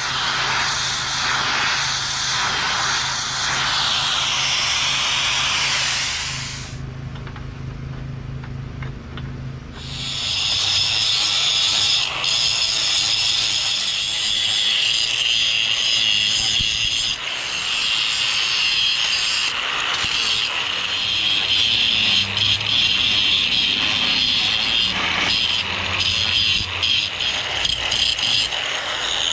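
Multiplaz 3500 plasma torch hissing steadily as it brazes brass into a cracked cast-iron band saw casting. After a short, quieter pause about six seconds in, an angle grinder grinds the brass braze bead down on the cast iron, loud and steady to the end.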